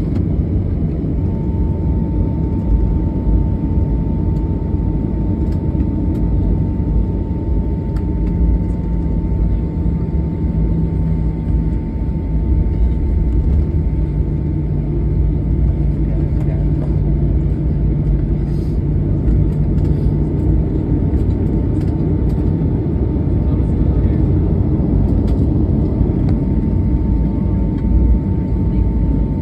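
Cabin noise of a jet airliner taxiing: a steady low rumble from the engines and rolling wheels, with a thin, steady whine running through it.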